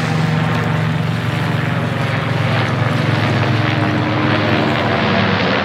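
Helicopter flying overhead: a steady, rapid beating of the rotor blades over a low engine hum.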